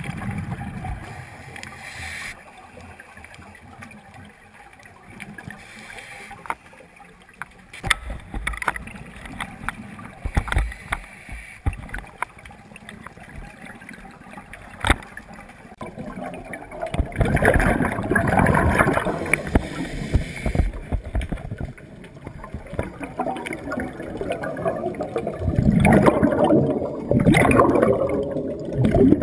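Scuba diver's exhaled bubbles from the regulator, heard underwater: two long bubbling exhalations in the second half, with scattered sharp clicks before them.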